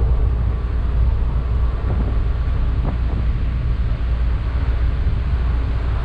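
Steady low rumble of a car ferry under way, its engines droning.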